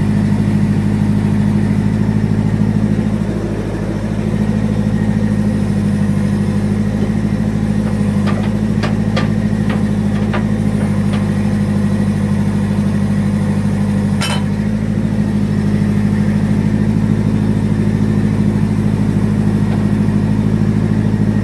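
JCB backhoe loader's diesel engine running steadily, heard from the operator's cab as the backhoe arm is worked. A quick run of about six sharp clicks comes about eight to eleven seconds in, and a single louder knock a few seconds later.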